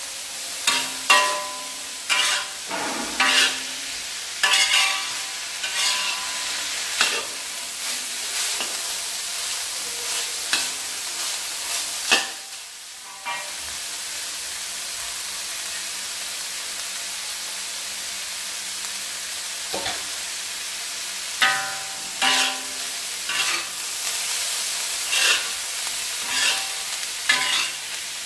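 Minced beef and pork sizzling in a wok while a metal spatula scrapes and clanks against the pan in bursts of stirring. The strokes thin out for a stretch in the middle and pick up again near the end, while the sizzle goes on.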